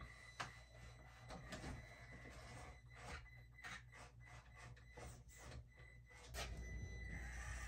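Traxxas TRX-4M micro RC crawler creeping over a course: a faint whir of its small electric motor and gears, with irregular clicks and knocks as the tyres and chassis meet the obstacles. A steadier, louder hum sets in near the end.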